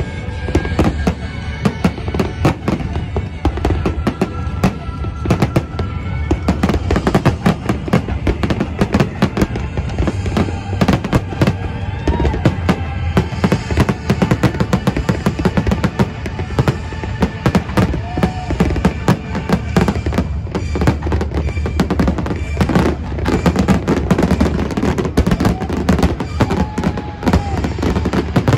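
Fireworks display: a dense, continuous run of sharp bangs and crackling from aerial shells bursting, over a low rumble, with music playing underneath.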